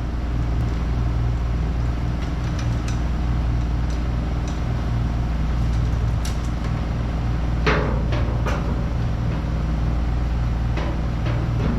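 A steady mechanical hum with a few sharp knocks over it, the loudest about two-thirds of the way through.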